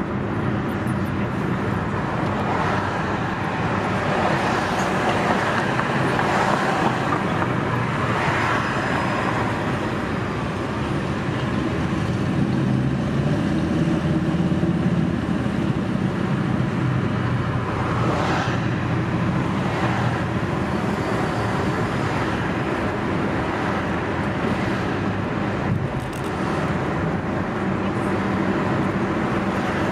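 Steady road and traffic noise of a car driving in slow city traffic, with a low engine and tyre hum and a few brief swells as other vehicles pass.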